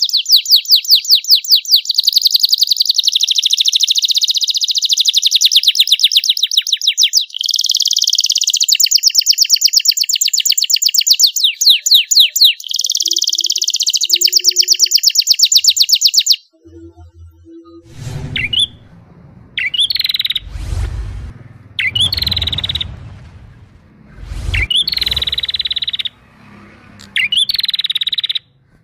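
Young domestic canary singing a long song of rapid trilled rolls, high and continuous, which cuts off suddenly about sixteen seconds in. After a short gap come shorter, separate chirping phrases over a low rumble.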